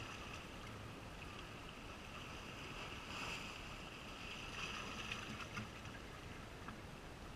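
Quiet seashore ambience: a calm sea and light wind, with faint high-pitched sounds swelling briefly about three seconds in and again around five seconds.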